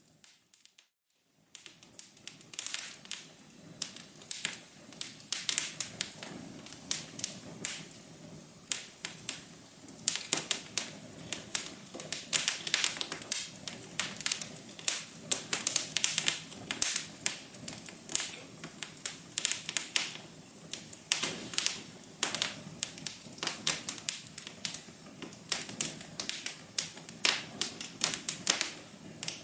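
Wood fire crackling in a fireplace: dense, irregular pops and snaps over a soft low hum. The sound drops almost to silence for about a second at the start, then picks up again.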